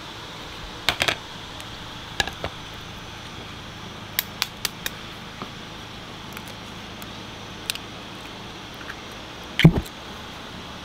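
Kitchen clatter at a noodle stall: short sharp clinks and clicks of bowls and utensils being handled, scattered through a steady background hiss, with one louder, deeper knock near the end like a bowl being set down.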